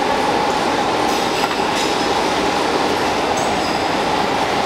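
Steady mechanical drone of factory machinery running, with a few faint light metallic clicks.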